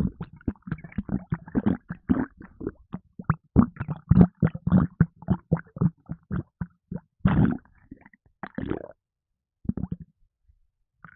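Stomach gurgling and sloshing, recorded close: a fast run of short bubbly pops with a few longer gurgles, from a gassy stomach after a carbonated energy drink.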